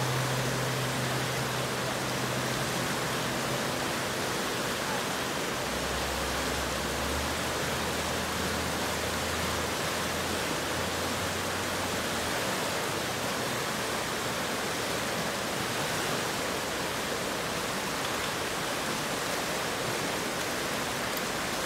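Fast creek water rushing through rapids: a steady, even rush of white water.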